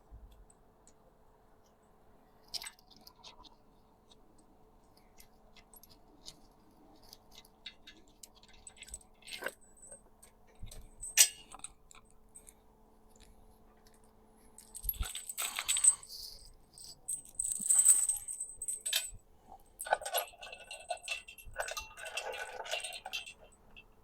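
Metal tools and engine parts clinking and rattling while an engine on a stand is being stripped down: scattered sharp clicks and clinks, then a busier stretch of clatter and scraping from about fifteen seconds in.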